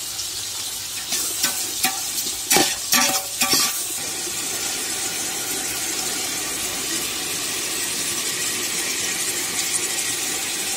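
Shallots, garlic and tomatoes sizzling steadily in oil in a metal pot as the tomatoes are sautéed down. The mixture is stirred, with several scrapes and knocks against the pot between about one and four seconds in.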